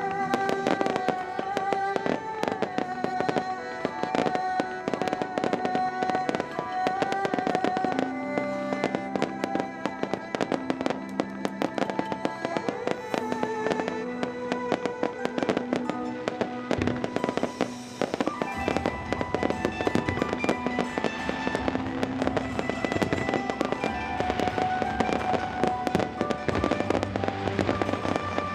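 Fireworks display: a dense run of bangs and crackling from bursting shells, over music with sustained melodic notes.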